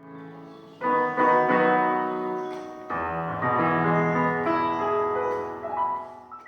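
Piano music. New chords come in about a second in and again near three seconds, and the music fades out near the end.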